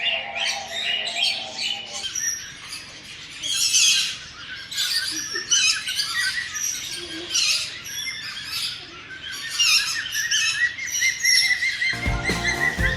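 A flock of parrots chirping and squawking together: many short, overlapping high-pitched calls with no pause.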